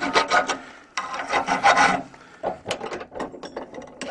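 Hand file scraping a small metal cable-end fitting: a few quick short strokes, then one longer stroke about a second in. After that, lighter clicks and knocks.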